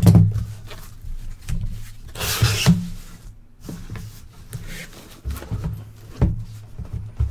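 A sealed cardboard case being handled and opened by hand: a thump as it is set down at the start, a short tearing rasp about two seconds in as the seal gives, then scattered knocks and cardboard rubbing as the flaps are folded back.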